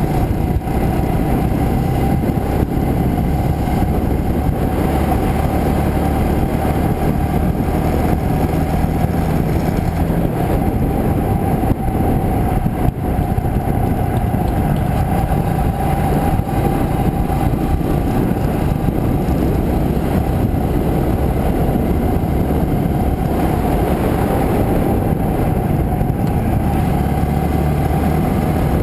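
Motorcycle riding steadily along a road, its engine running under a constant rush of wind and road noise. The level holds even, with no sharp events.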